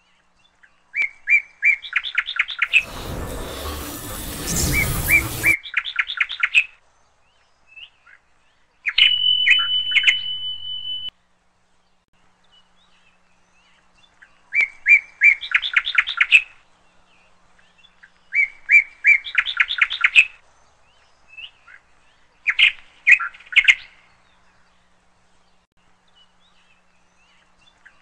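A bird chirping in short phrases of quick, evenly repeated high notes, the same phrase coming back every few seconds. A rushing noise runs for about two and a half seconds about three seconds in. A steady high tone with a low hum sounds for about two seconds around ten seconds in.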